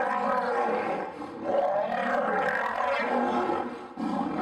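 Lions fighting: a black-maned male and a lioness roaring and snarling at each other, loud and near-continuous, with brief lulls about a second and a half in and again near the end.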